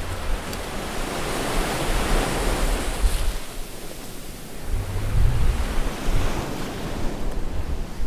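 Ocean waves washing in, swelling up and easing off twice, with wind buffeting the microphone in low irregular rumbles.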